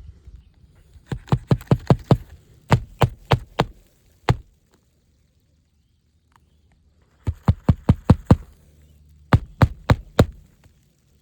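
Hammer driving roofing nails into a new asphalt shingle: quick runs of sharp strikes, about four a second, several nails in turn, with a pause of about three seconds in the middle.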